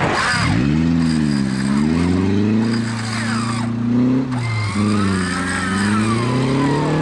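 Land Rover Defender's engine revving up and down in repeated surges as it works through a deep mud hole, the pitch climbing and falling several times with a brief drop about four seconds in.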